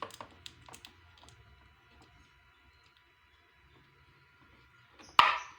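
Small clicks and handling noise, then about five seconds in a single loud pop with a brief hiss, as a cable jack goes into the siren module's aux input and the pop comes through its speaker. A faint steady electronic whine sits under it.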